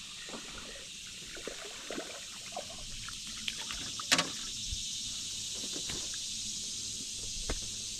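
Steady high hiss of swamp insects, with light water trickles and scattered small clicks; one sharp click about four seconds in is the loudest, and another comes near the end.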